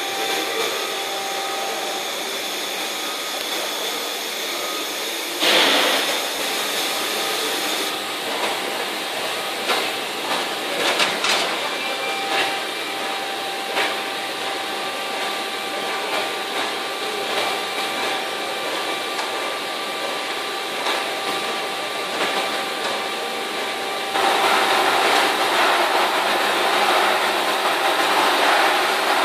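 Stone-working machinery running steadily with a constant whine, with scattered clicks and knocks. Near the end a louder rushing noise comes in.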